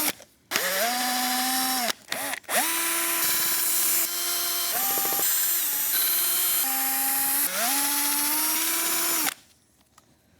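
Cordless power drill/driver running in the shop. It spins up with a rising whine, stops briefly about two seconds in, then runs again for several seconds with its speed shifting up and down, and cuts off near the end.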